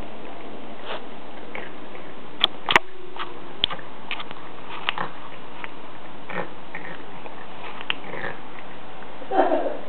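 Flat-faced Exotic Shorthair cat snorting and snuffling through his nose at close range, with scattered small sharp clicks and a louder snuffle near the end.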